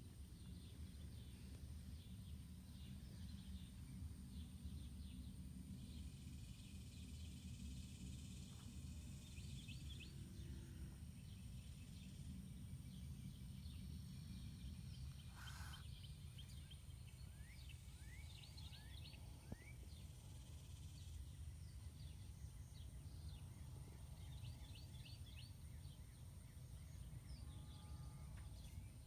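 Faint outdoor ambience: a steady low rumble with scattered distant bird chirps, and one brief burst of noise about fifteen seconds in.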